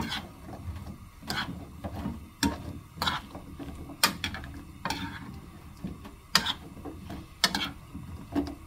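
Metal spoon knocking and scraping against a frying pan while stirring sliced pumpkin, sharp irregular clicks about once a second.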